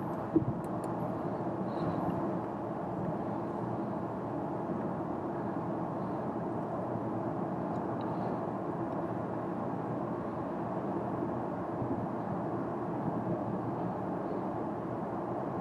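Steady tyre and wind noise inside the cabin of a Toyota Corolla 125h hybrid cruising at motorway speed, with one short knock about half a second in.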